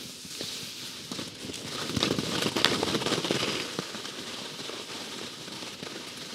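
Skis scraping and chattering over hard, tracked snow, a rough crackle of many small clicks that grows louder about two seconds in and eases off after about four.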